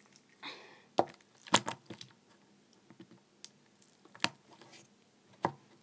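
Slime being pressed down into a clear plastic container, giving a handful of short, sharp squelching pops, the loudest about one and a half seconds in. The pops are trapped air forced out of the slime, the "farty" noise it makes.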